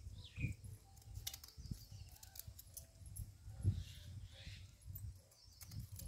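Soft handling thumps and rustling, with a few sharp clicks and one brief faint chirp about half a second in.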